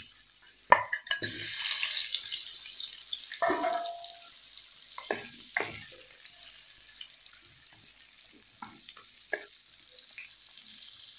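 Pumpkin cubes dropped into hot mustard oil in a kadai and sizzling, with a scattering of short knocks as the pieces go in. The sizzle is loudest in the first few seconds and then settles to a quieter fry.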